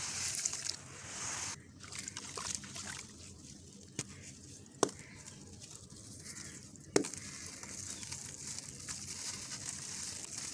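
Gritty reused cement with concrete stones crumbling in water: wet sloshing and trickling with a fine gritty crackle, broken by a few sharp cracks, the loudest about seven seconds in.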